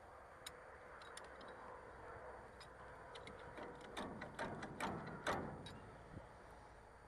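Light metal clicks and short scrapes from a hay baler's knotter parts being moved by hand, a few scattered ticks at first and then a busier run of clicking and scraping about four to five and a half seconds in.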